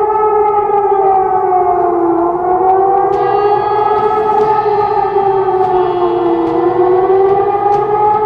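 Iraqi emergency-alert warning siren wailing loudly, its pitch sinking slowly and rising again about every four seconds.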